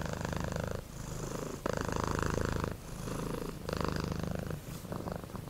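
Domestic cat purring, its low buzzing purr swelling and dipping in cycles of about a second with each breath.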